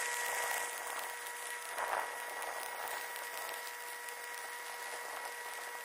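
Stick-welding arc on steel pipe, a steady crackle and hiss with a thin high whine of several tones held underneath.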